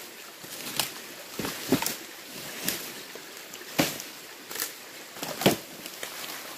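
Dry bamboo being chopped and broken up: irregular sharp knocks and cracks, about one or two a second, the loudest about five and a half seconds in.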